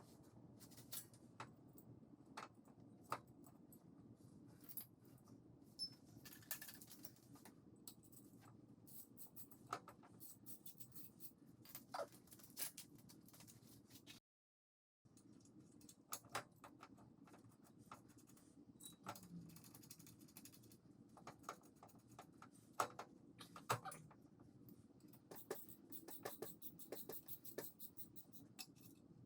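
Near silence with faint scattered clicks and light metallic taps of tools and brake parts being handled while a new brake rotor is fitted on the wheel hub, broken by a moment of total silence about halfway.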